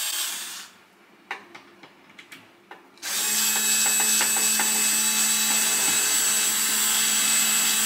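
Small cordless electric screwdriver with a short burst at the start and a few light clicks, then running steadily for about six seconds from about three seconds in as it tries to drive a screw through an acrylic shelf into the wall. The screw won't go in, which she suspects is because the wall is too thick.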